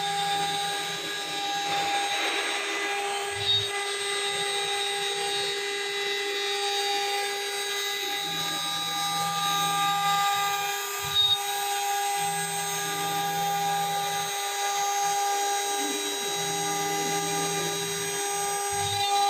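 CNC engraving router at work: the spindle runs with a steady whine of several tones while the axis motors hum in stretches that start and stop as the tool moves through the cut. Two brief ticks stand out, about 3 seconds and 11 seconds in.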